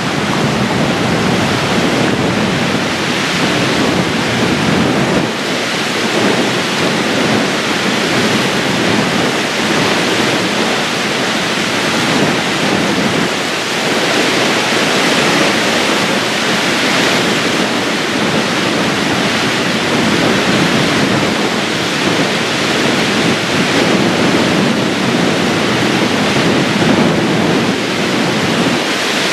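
Steady loud rush of wind-whipped, choppy water washing against a rocky shore, driven by a strong wind of about 60 to 70 km/h.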